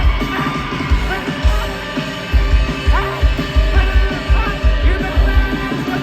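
Rock band playing live at full volume: drums, with a steady kick about twice a second, under sustained guitars, in a long stretch with no words.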